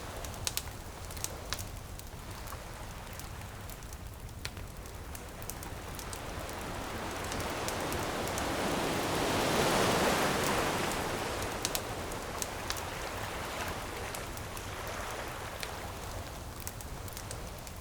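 One ocean wave surges in and washes back out, loudest about ten seconds in, over the scattered crackles and pops of a bonfire.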